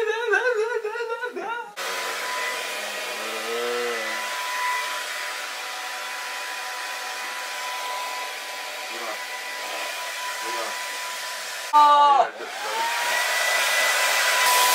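Handheld electric hair dryer running, a steady blowing rush with a high motor whine. It starts about two seconds in, after a short wavering hum from a voice. Near the end it cuts out for a moment, and the whine rises back to full speed.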